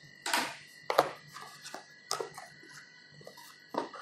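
Cardboard product box and its pulp-cardboard inner tray being opened and handled: a handful of short rustles and knocks, the sharpest about a second in, with smaller ones around two seconds and another near the end.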